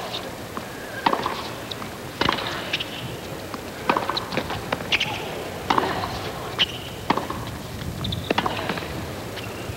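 Tennis rally on a hard court: sharp racket strikes and ball bounces, one impact about every half second to second and a half.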